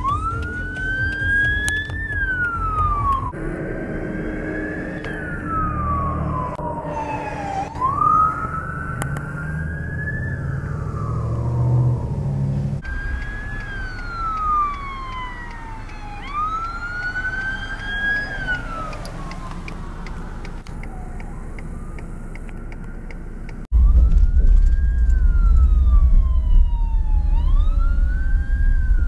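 Emergency vehicle sirens wailing, sweeping up and down in pitch every two to three seconds. The sound changes abruptly a few times. In the last few seconds a loud, deep rumble from inside a moving car lies under the siren.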